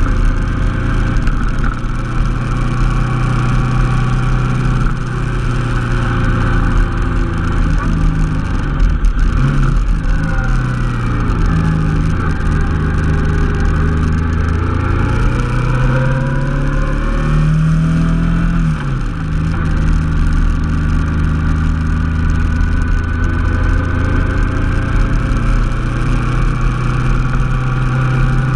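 Honda NT700 Deauville's V-twin engine running steadily under way. Its pitch shifts with the revs about ten seconds in, and again with a rise and fall around seventeen to nineteen seconds in.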